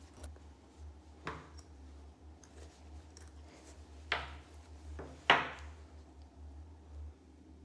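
Packaging being handled during an unboxing: three short scrapes or knocks, the last the loudest, over a steady low hum.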